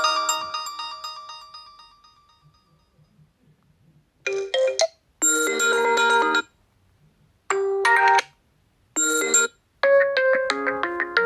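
Oppo A16 phone tones played in turn: a pitched tone dies away over the first two seconds, then after a short gap of near silence a tone sounds in four short bursts of chords with gaps between them, and near the end a new tone starts with a quick run of notes.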